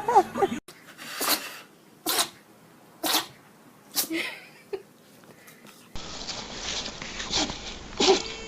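Puppy sneezing: four short, sharp sneezes about a second apart, then a smaller one. Near the end come more quick sneezes.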